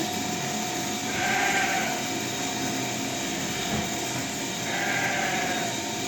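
Sheep bleating twice, once about a second in and again near five seconds, over a steady hiss of background noise.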